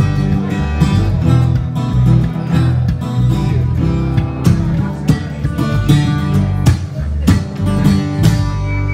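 Acoustic guitar strummed hard in a fast, steady rhythm; the strumming stops near the end.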